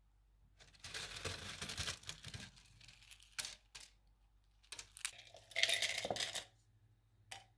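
Dried lemon peels crackling and rustling as a hand scoops them off a mesh drying tray and drops them into a plastic blender cup, in several bursts with a short click near the end.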